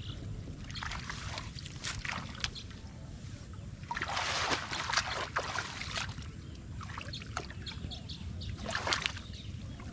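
Hands splashing and sloshing in shallow muddy water among grass stalks, groping for fish, in irregular bursts with the loudest stretch of splashing about four to five seconds in.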